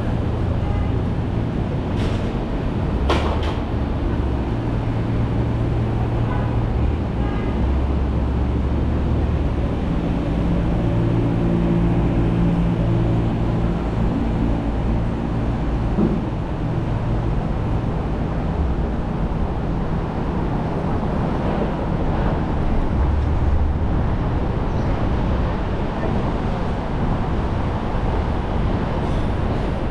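City traffic and road noise heard from a moving car: a steady low engine and tyre rumble whose hum shifts in pitch now and then, with two sharp clicks about two and three seconds in.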